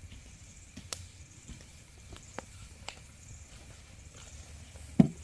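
A few faint, sharp clicks and a soft knock near the end over a quiet night background hiss.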